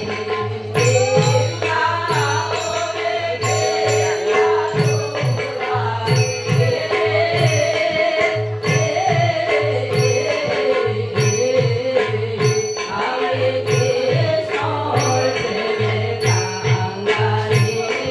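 Traditional Manipuri dance music: drum strokes and regular sharp cymbal strikes keep the beat under a melody that bends up and down, over a steady held note.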